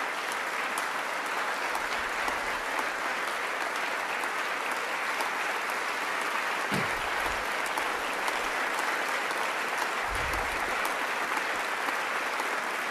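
Long, steady applause from a large audience.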